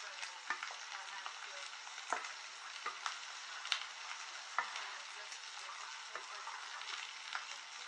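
Stir-fried noodles and vegetables in hoisin sauce sizzling steadily in a hot pan while being stirred and tossed, with a handful of sharp clicks of the utensil knocking against the pan.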